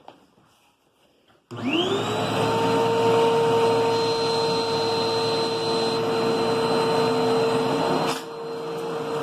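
Hoover upright vacuum cleaner switched on about one and a half seconds in, its motor whine rising quickly to speed and then running steadily while it picks up debris. About eight seconds in there is a click, after which it runs a little quieter.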